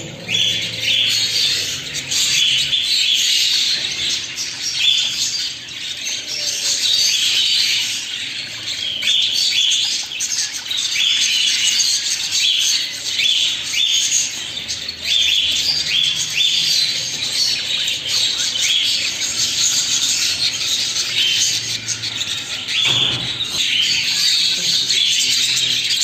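Several caged budgerigars chattering and warbling together: a dense, continuous stream of short, high chirps.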